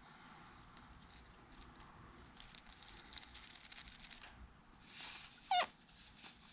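A short hissing spray of aerosol carburetor cleaner about five seconds in, followed by a brief high squeak that falls steeply in pitch.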